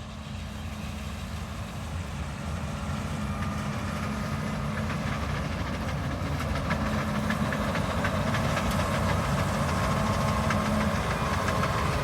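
A large vehicle engine running steadily, growing gradually louder.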